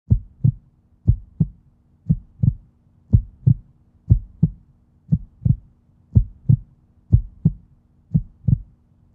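Heartbeat sound: paired low thumps, lub-dub, about once a second, over a faint steady hum. It starts abruptly out of silence.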